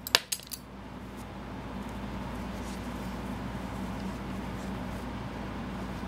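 A few sharp metallic clicks from small scissors trimming the yarn end, all within the first half-second, followed by a steady low background hum.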